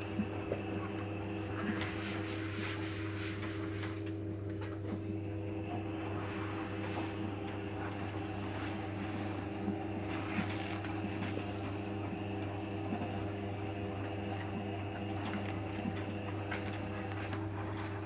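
Beko Eco Care WMA 1510 W front-loading washing machine running a 60 °C eco wash: its motor hums steadily as the drum tumbles a sudsy load, with light scattered clicks.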